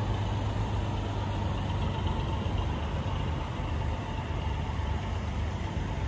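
An engine idling, a steady low rumble with no change in speed.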